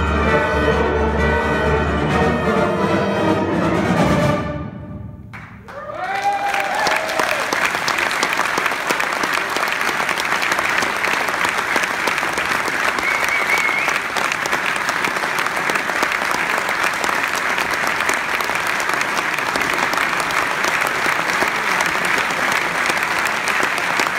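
A fanfare band of brass, saxophones and percussion holds its final chord, which dies away about four seconds in, marking the end of the piece. The audience then breaks into sustained applause.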